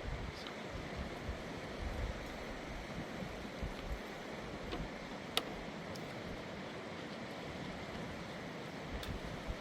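Steady rush of a fast-flowing mountain river, with one sharp click about halfway through.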